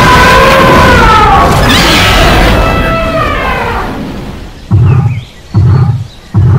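A loud animal bellow with a falling pitch that fades away over about four seconds. Then come heavy, booming footsteps of a giant creature, one thump a little less than every second.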